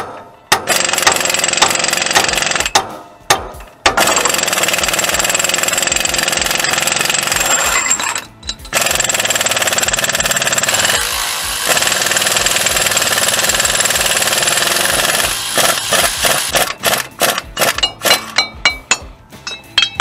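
Impact wrench hammering on the front wheel hub in three long runs of several seconds each, then a string of short trigger bursts near the end.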